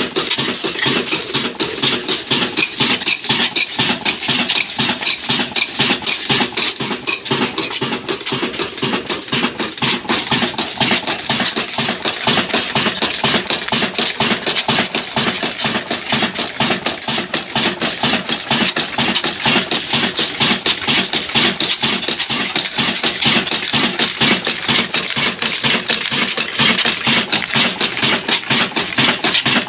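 Old stationary diesel engine (desi 'black engine') running steadily, each firing stroke a sharp knock in a fast, even rhythm.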